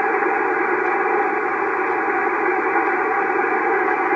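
Homebuilt tube shortwave receiver tuned to the 40-meter band, its speaker giving a steady hiss of static with the treble cut off, between voice transmissions. The set is running with 12 volts on both the tube filaments and the plates.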